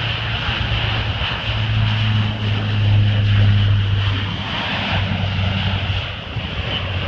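C-130 Hercules turboprop transport taking off and climbing past: a steady propeller drone with a low hum, loudest about three seconds in and then fading as the plane climbs away.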